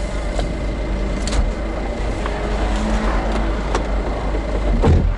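Abarth 124 Spider's engine idling steadily in the stationary car, with a few short knocks and clicks as the driver climbs into the seat, the loudest near the end.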